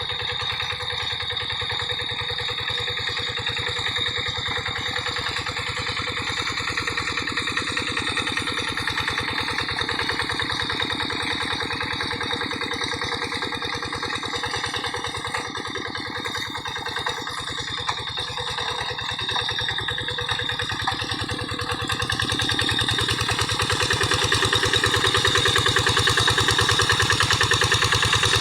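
Quick G1000 hand tractor's single-cylinder diesel engine running steadily with a rapid, even firing beat while it harrows wet mud. It grows louder about two-thirds of the way in.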